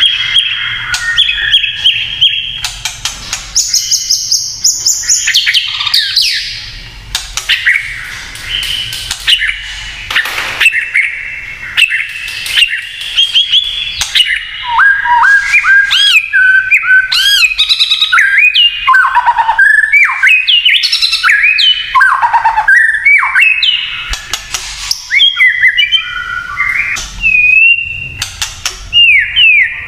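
White-rumped shama singing a long, varied song: loud whistled phrases that slide up and down, mixed with rapid crackling, clicking notes (the 'kretekan' that shama keepers prize).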